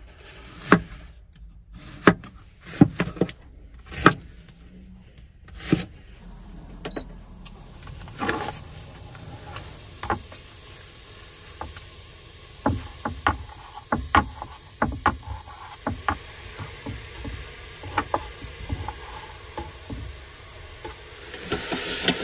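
Kitchen knife knocking on a wooden cutting board as an onion is cut, with a few sharp irregular knocks in the first six seconds. Lighter clicks and handling taps follow. Near the end comes a rising hiss of food sizzling in the hot pot of an electric multicooker.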